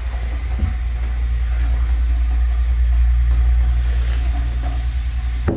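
A steady low engine rumble that swells a little toward the middle and cuts off abruptly near the end.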